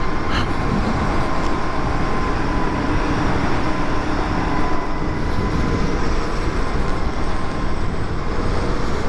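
2012 Zero DS electric motorcycle cruising at a steady speed: a steady rush of wind buffeting the microphone and tyre noise on the road, with a faint steady whine under it.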